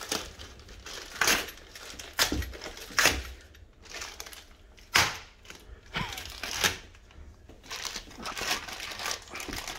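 Foam and plastic packaging being stripped off a bicycle frame: irregular rustling and crinkling, broken by a handful of sharp snaps and clicks.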